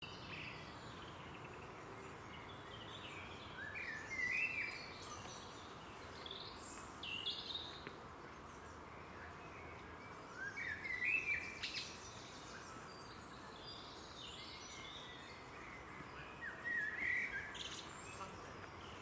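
Songbird singing in woodland: four short, chirpy song phrases a few seconds apart, over a steady faint background hiss.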